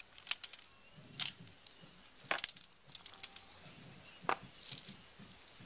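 Plastic Lego Technic parts clicking and rattling as a small axle assembly is turned over and worked in the hands: scattered sharp clicks, with a quick cluster of them a little over two seconds in.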